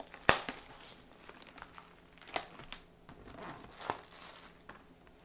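Packaging of a sealed trading-card display box crinkling and tearing as it is opened, with scattered crackles and one sharp click about a third of a second in.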